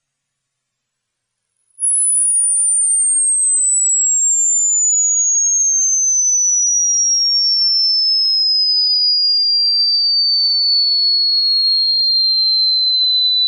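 An electronically generated pure sine tone, a slow downward frequency sweep: it starts abruptly about two seconds in, very high-pitched, and glides steadily down to a lower but still piercing pitch, at an even, loud level.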